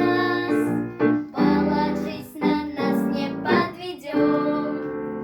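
Children's pop song: young voices singing a duet over piano or keyboard backing, finishing a phrase on a long held note near the end.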